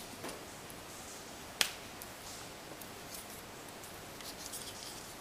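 Paper petals being curled around a bamboo skewer: faint rustling and scraping of card stock, with one sharp click about a second and a half in.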